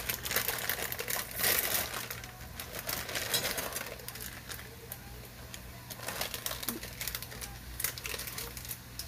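Plastic ramyeon seasoning sachets crinkling and rustling in the hands as they are torn open and shaken out, in irregular bursts of crackles. A steady low hum runs underneath.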